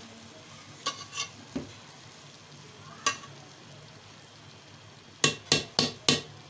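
A spatula stirring and turning cooked pulao rice in a metal pot, with scattered knocks against the pot. Near the end come four quick, sharp knocks. The rice's cooking water has just cooked off.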